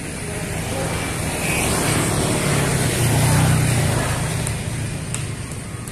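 Motor scooter passing close by on a paved road: the engine hum and tyre noise grow louder, peak about three and a half seconds in, then fade away.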